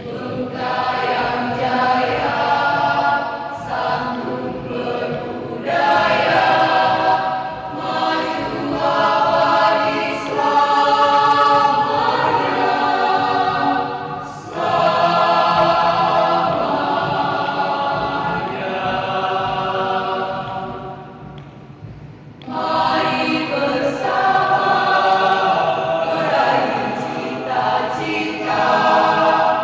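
A high-school choir singing in long sustained phrases. The singing drops to a brief quiet breath about 21 seconds in, then comes back in full.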